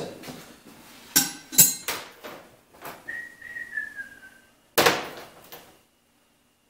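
Hand tools clinking together several times, then a short whistled note that slides slightly down in pitch, then a single loud metal clank with a brief ring.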